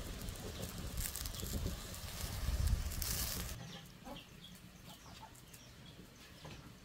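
Chickens clucking, heard through a loud rushing and rumbling noise that stops about three and a half seconds in; after that the clucks and chirps carry on more quietly.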